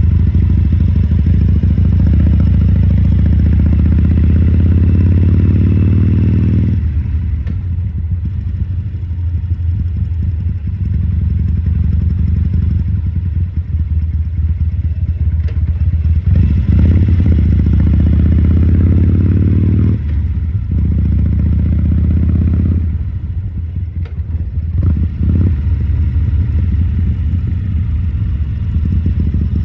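2014 Harley-Davidson Sportster 1200 Custom's air-cooled Evolution V-twin running at low speed, with the throttle opened and closed: the engine note swells for several seconds, then drops back toward idle, several times over.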